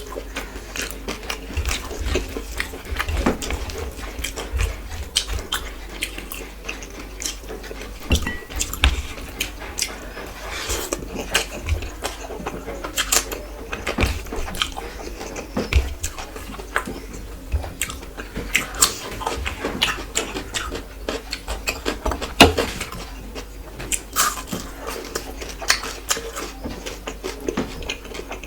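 Close-miked mukbang eating: chewing and biting, with many short, sharp mouth clicks and crunches throughout.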